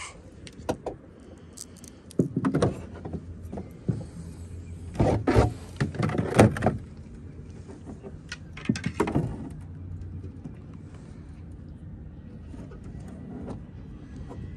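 Clattering knocks and rattles of fishing gear being handled in a small boat, heaviest in a few bunches, over a low steady hum that fades about ten seconds in.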